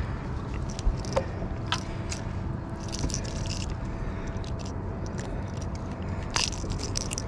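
Gloved hands handling a fishing lure close to the microphone: scattered scrapes and light clicks, over a faint steady hum.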